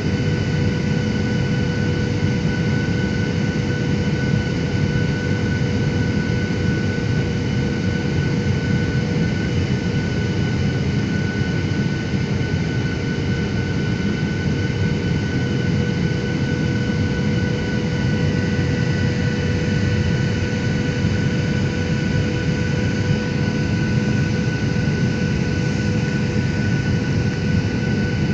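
Cabin noise inside a Garuda Indonesia jet airliner during descent: a steady dense rumble of engines and airflow with several faint steady high tones over it.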